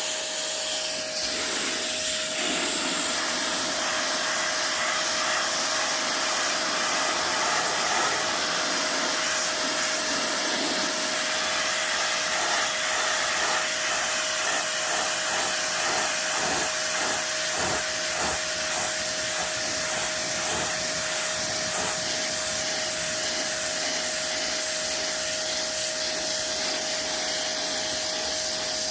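Handheld pressure washer running continuously: a steady motor whine at one pitch under the hiss and spatter of the water jet.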